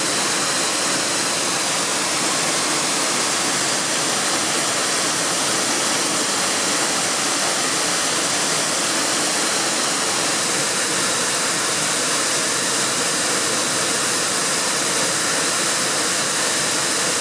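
Waterfall: a steady, loud rush of falling water, even and unbroken.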